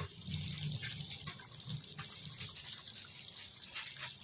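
Pork humba simmering in its sauce in a pot: soft bubbling with small scattered pops.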